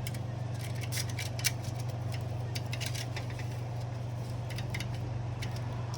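Irregular light metallic clicks and clinks of hand tools and metal parts being handled during assembly, with a sharper clink about a second and a half in, over a steady low hum.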